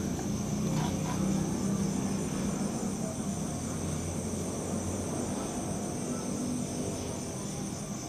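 Insects chirring steadily at a high pitch over a low background rumble, with a few light clicks about a second in.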